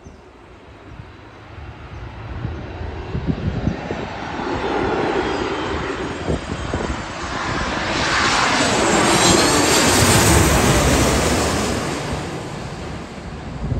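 Commercial airliner passing low overhead: its engine noise builds, peaks about ten seconds in with a falling pitch as it goes by, then fades.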